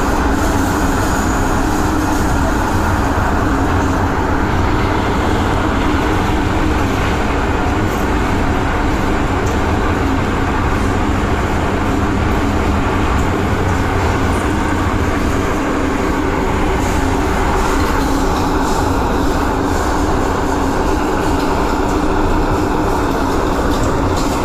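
MTR M-train, a Metro-Cammell electric multiple unit, running on the line: a steady rail rumble with a constant low hum. The hiss gets brighter about eighteen seconds in.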